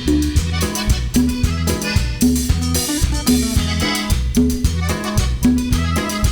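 Band playing cumbia tejana: an instrumental passage with a repeating bass line and drum kit keeping the beat.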